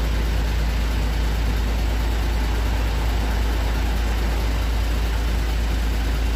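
A steady low engine drone at idle, unchanging throughout.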